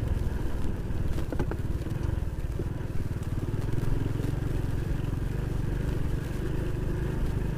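Honda Pop 110i motorcycle's small single-cylinder engine running steadily under way, with road noise.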